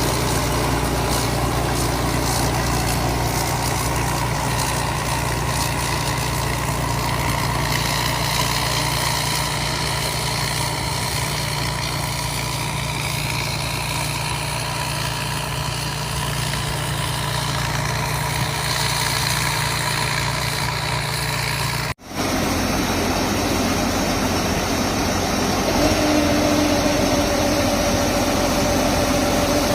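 Combine harvester engine and machinery running steadily, cutting off for an instant about two-thirds of the way through. Near the end a steady whine joins in.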